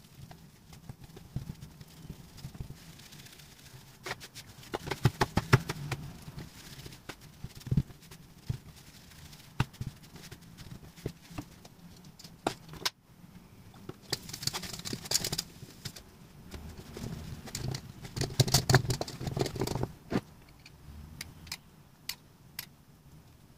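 Hands patting and pressing pizza dough flat on a floured countertop: soft irregular slaps and taps, coming in denser flurries a few times, with scattered light knocks and clicks.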